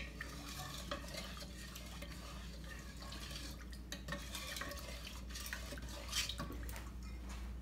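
Wooden spoon stirring sugar into water in a stainless steel saucepan, scraping lightly with a few soft taps against the pot, over a steady low hum.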